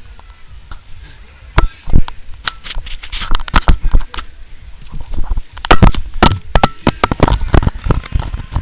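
Handling noise from a hand-held camera being jostled and covered: irregular loud knocks and rubbing on the microphone, coming thick and fast in the second half.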